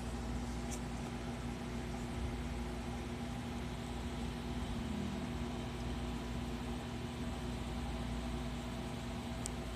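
Steady hum and hiss of an electric box fan running, with one short click near the end.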